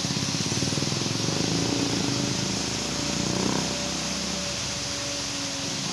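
Steady rush of a waterfall. Under it for the first half is a fast, even low pulsing that fades out about three and a half seconds in.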